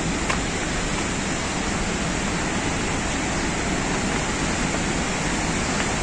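Waterfall rushing steadily, an even wash of water noise that does not let up.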